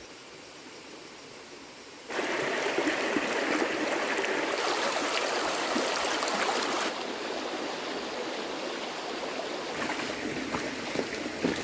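Running water, a steady rushing splash that starts suddenly about two seconds in after a faint hiss and shifts in tone a few times.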